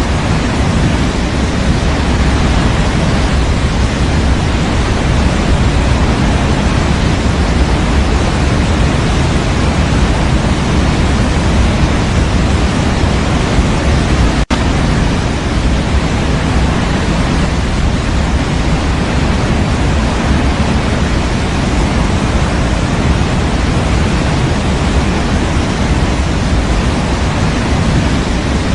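Steady synthetic white noise for baby sleep: an even, constant hiss, deeper and fuller in the low end than pure white noise, with a split-second dropout about halfway through.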